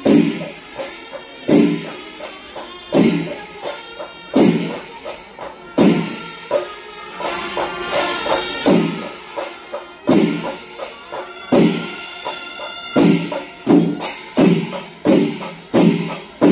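Kerala chenda melam: temple drums and hand cymbals playing a steady rhythm. A heavy stroke falls about every one and a half seconds with lighter strokes between, quickening in the last few seconds.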